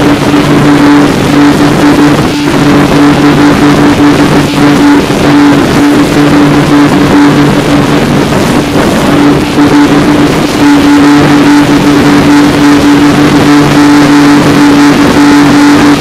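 Twin outboard motors on a passenger speedboat running at steady cruising speed, a held engine hum over a loud rush of wind and water against the hull.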